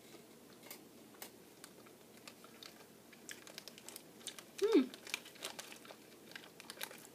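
Light crinkling and small clicks of a candy package being handled, with faint chewing of a Mike and Ike candy and a brief hum of the voice about five seconds in.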